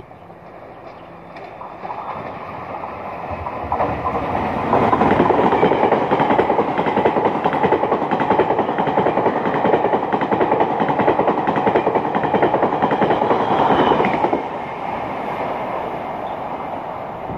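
Taiwan Railway Tze-Chiang limited express passing through the station at speed. Its rumble builds over the first few seconds, then loud rolling wheel noise and rail clatter from the carriages last about ten seconds. Near the end the sound drops suddenly to a quieter rail rumble.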